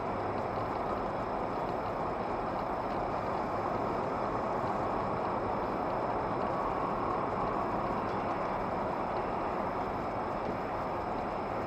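Steady engine and tyre noise of a car driving on a snowy road, heard inside the car's cabin.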